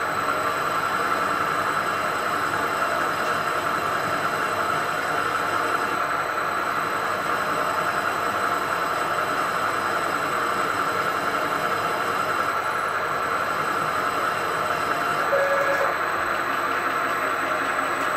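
CNC milling machine spindle running steadily while a twist drill cuts into the induction-hardened cast-iron bed of a lathe: a steady high whine over even machine noise.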